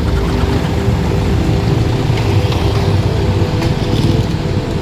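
Road traffic driving past at close range: the steady mixed engine and tyre rumble of cars, a pickup and motorcycles.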